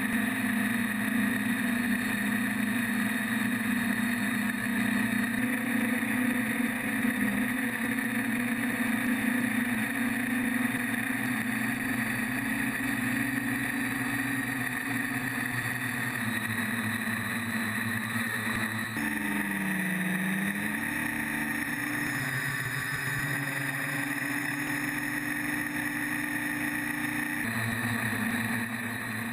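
FPV quadcopter's four NTM 2826 brushless motors and propellers humming steadily in flight. About two-thirds through, the pitch dips and rises again as the throttle changes.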